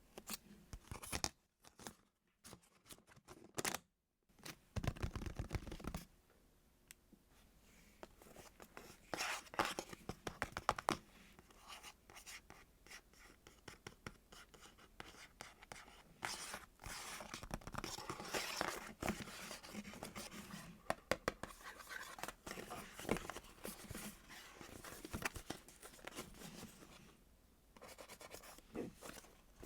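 Close-miked squeezing and handling of foam squishy toys: irregular scratchy, crinkly crackling with many small clicks. It drops out to silence for a few seconds shortly after it starts.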